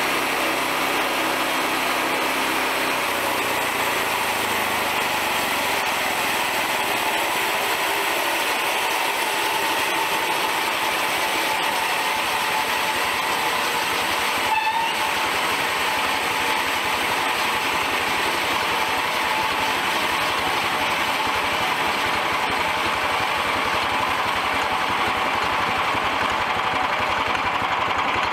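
Portable band sawmill running steadily, its small gasoline engine and band blade making a constant even drone with a high hiss as the head travels along the log.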